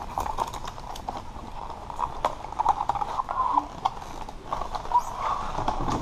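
Product packaging being handled and opened by hand: a run of irregular clicks, taps and rustles.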